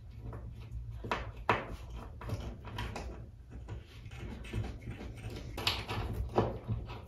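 Irregular small clicks and scrapes of a wall fitting being worked by hand against drywall, over a steady low hum.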